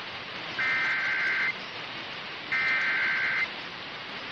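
Two bursts of the Emergency Alert System's SAME digital header on NOAA Weather Radio: harsh electronic data tones, each about a second long and a second apart, over steady radio hiss. They are the coded start of a new alert broadcast.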